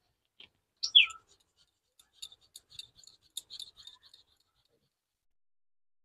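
Boiled potato being grated on a small handheld steel grater: a run of faint, irregular scraping strokes between about two and four seconds in. About a second in, a short high falling chirp is the loudest sound.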